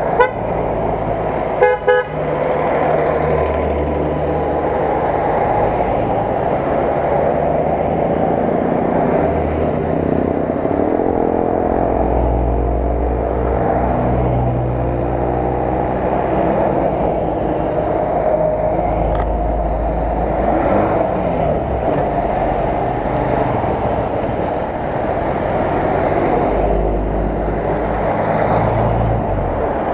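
A column of Lada Nivas and other cars driving past one after another on a paved road, with engine and tyre noise swelling as each one goes by. Short horn toots sound near the start and again at the very end.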